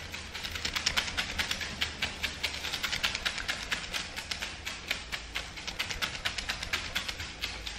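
Folding hand fan waved rapidly, each stroke a short swish of air, about four a second and slightly uneven, over a faint low hum.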